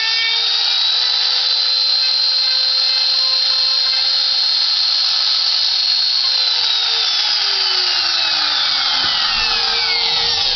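Skil wood router running with a loud, steady high-pitched whine; from about six seconds in its pitch falls steadily as the motor slows.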